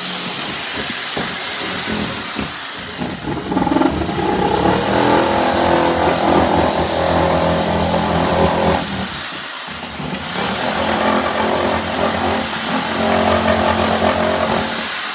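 A motor running and changing speed: it rises in pitch, holds, and winds back down, then does the same again after a short break partway through.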